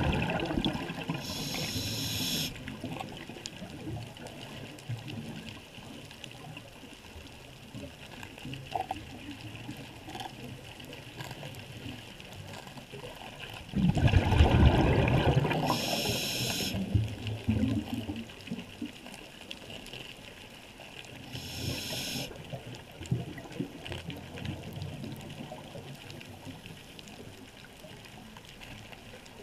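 Scuba diver breathing through a regulator underwater: two long bubbling exhales, one right at the start and one about 14 seconds in, and three short hissing inhales, about 2, 16 and 22 seconds in, over a steady underwater wash.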